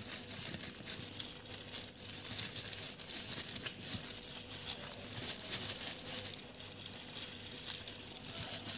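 Thin disposable plastic gloves crinkling and crackling irregularly as gloved hands press lemon slices down onto olives in a plastic jar.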